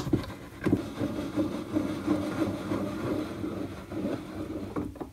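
Vise on a Warco 5-inch metal bandsaw being wound shut by its hand crank: the screw turns steadily for about four seconds, between a knock at the start and another near the end.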